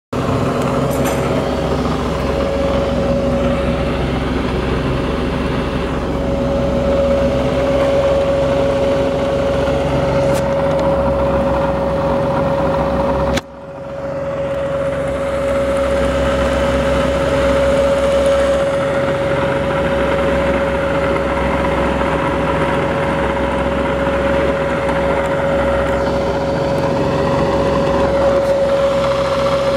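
Bridgeport Series I milling machine running, its 2 hp three-phase motor and spindle drive giving a steady whine over a low hum. About halfway through there is a sharp click and the sound briefly drops away before coming back steady.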